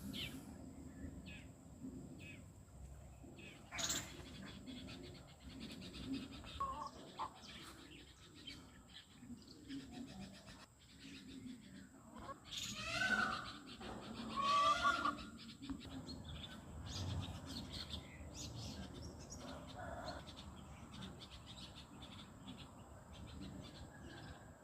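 Aseel chickens calling, with two louder, pitched calls a little past halfway, over scattered faint chirps and clicks.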